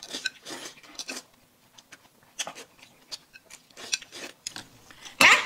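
Close-up eating sounds of dumplings being eaten with chopsticks: chewing and lip-smacking with many small clicks. A short, louder vocal sound comes near the end.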